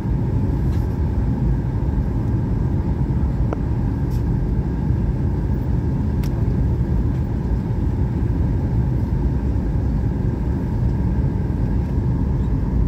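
Steady cabin noise inside a Boeing jet airliner on its descent: a constant low rumble of the engines and rushing air, with a faint steady whine above it.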